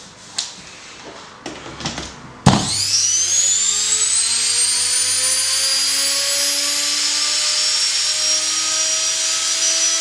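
Washing-machine universal motor wired as a series motor, switched on with a click about two and a half seconds in and running up unloaded. Its whine climbs steeply, then keeps creeping higher over a steady hiss. With no load, the series-wound motor's speed is not self-regulating and runs up toward overspeed.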